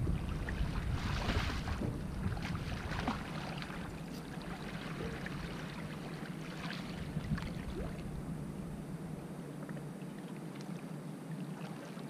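Water splashing irregularly beside a boat as a hooked catfish is played up and netted, over a steady low rumble that falls away near the end.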